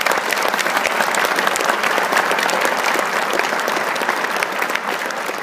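A large seated audience applauding, a dense, steady round of clapping.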